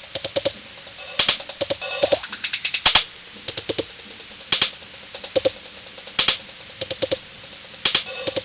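Instrumental break of an electronic punk/hip-hop track: a drum-machine beat of fast, even hi-hat ticks with louder hits about once a second, over a steady held note.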